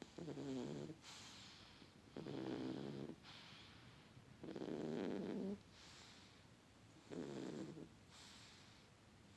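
Kitten snoring in its sleep: about four slow breaths, each a low snore followed by a softer breathy hiss, some two to two and a half seconds apart.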